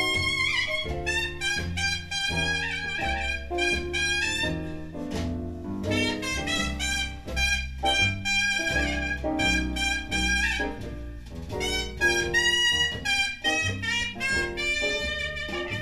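Jazz trumpet solo over a steady bass line, played back from a vinyl LP on a Garrard 301 turntable.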